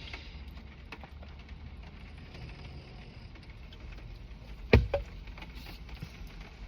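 Quiet handling noises with one sharp knock just under five seconds in, followed closely by a smaller one.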